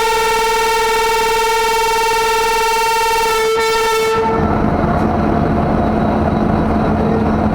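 WAP 7 electric locomotive's horn sounding one long, steady, single-pitched blast that cuts off about four seconds in. A low train rumble with a steady hum follows.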